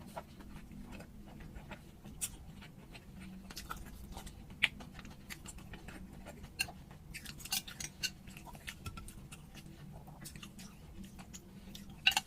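Close-up mukbang mouth sounds of someone chewing fresh spring rolls with balut: irregular clicks and smacks, with a louder cluster near the end.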